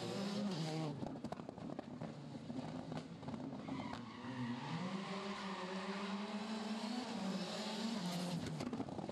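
Škoda Fabia rally car's engine: revs drop early, then a string of sharp pops and crackles over the next two seconds, then revs climb again at about four seconds, hold, and fall near the end as the car takes a tight corner.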